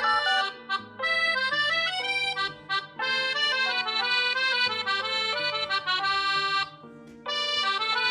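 Mobile phone ringtone playing a quick, busy melody in phrases, broken by short pauses about a second in, near three seconds and around seven seconds.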